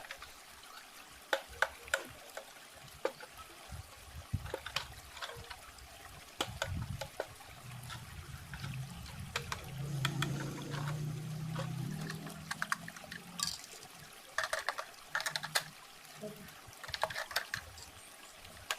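Scattered light clicks and taps of a plastic toy truck and its packaging being handled, with a low hum through the middle stretch.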